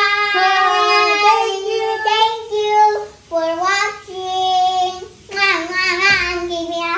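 Children singing in high voices, holding long notes.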